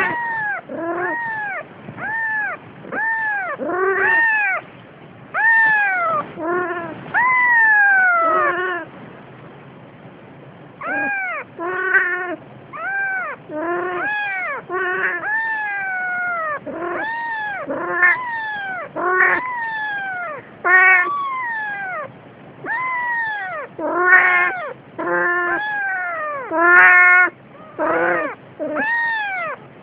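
Newborn Siamese kitten mewing over and over, short high cries that rise and fall, about one a second, with a short pause partway through.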